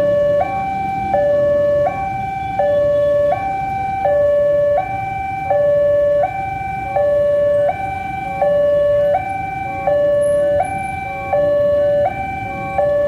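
Railway level-crossing alarm sounding a two-tone signal, a lower and a higher tone alternating, each held for under a second, warning that a train is approaching. Steady street rumble underneath.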